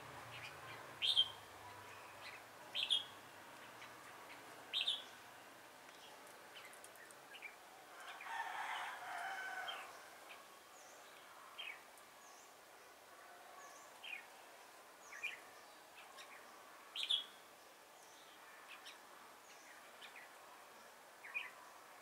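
Red-whiskered bulbuls giving short, sharp calls every second or two. A rooster crows once, about eight seconds in.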